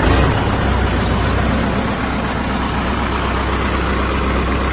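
Massey Ferguson 385 tractor's diesel engine idling steadily, just after being started with the key.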